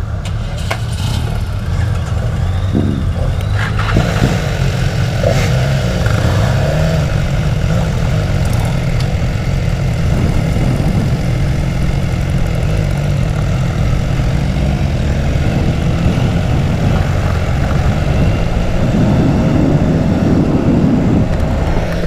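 BMW S1000 XR inline-four engine running as the motorcycle pulls away and rides along, under a steady heavy rumble of wind on the helmet microphone.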